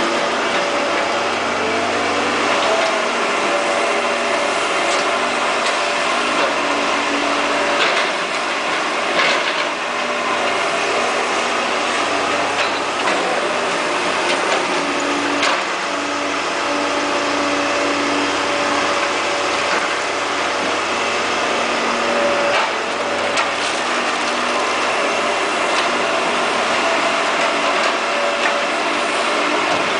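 Caterpillar E240B excavator's diesel engine running steadily, with a few sharp knocks now and then.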